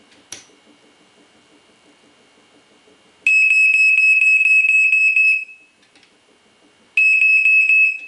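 Black & Decker Flamebuster ionization smoke alarm sounding on its test button: a click as the button is pressed, then a loud, high-pitched beeping for about two seconds, and again for about a second near the end.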